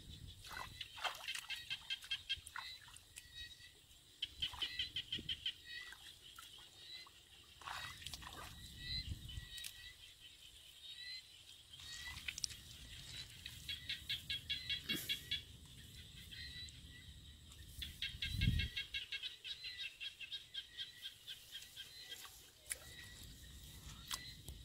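Repeated bursts of rapid pulsed chirping calls from small animals in a flooded rice field, each burst about a second long, with scattered clicks. Feet and hands squelch and slosh in mud and shallow water now and then, loudest about eighteen seconds in.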